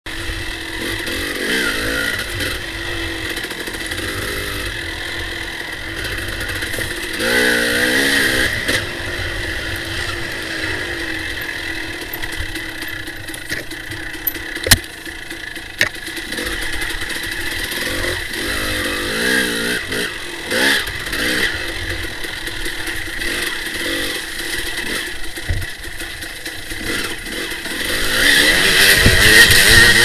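Dirt bike engine running along a rough trail, revving up a few times, with a sharp knock about halfway through. Near the end the sound gets much louder, with the hiss of water spray as the bike drives into a river crossing.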